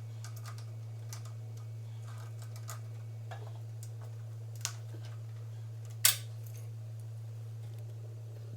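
Light clicks and taps of hand tools on the engine's metal parts while bolts holding the carburetor are worked loose, with one sharper click about six seconds in, over a steady low hum.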